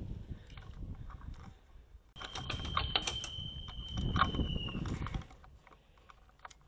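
Handling and movement noise from a body-worn camera as it swings toward the ground: low rustling with many sharp clicks. A steady high tone, like a whistle, lasts about two and a half seconds from around two seconds in and falls slightly at its end.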